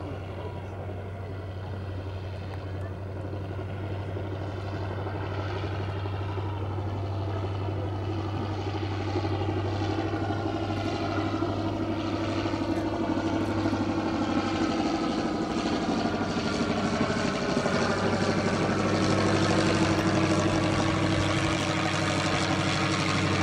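Piston engine and propeller of a Fieseler Storch-type high-wing light aircraft flying low overhead, a steady drone growing louder as it comes closer.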